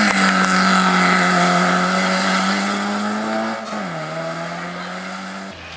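Rally car engine held at high revs through a corner, with one steady loud note that drops a little in pitch a little over halfway through as the revs come down.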